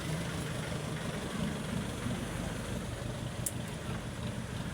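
A steady low mechanical hum, with a single short click about three and a half seconds in.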